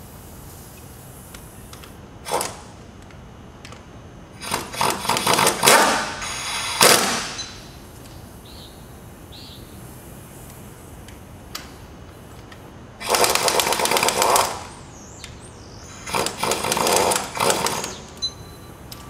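Cordless impact driver running the blade-mounting bolts of a hydraulic shear home in short hammering bursts: one brief burst, then several longer runs of one to two seconds each, bolt after bolt.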